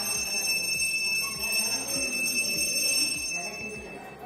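A steady high-pitched ringing tone that fades out near the end, over a faint busy background.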